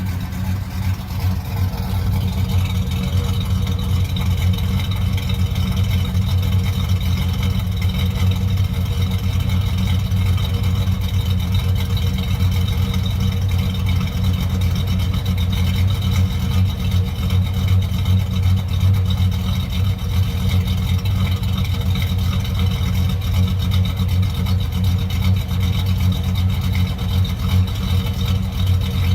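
GM 5.3L V8 in a GMC Sierra, fitted with a Texas Speed Stage 2 camshaft (212/218 duration, 112° lobe separation), idling steadily through the stock muffler.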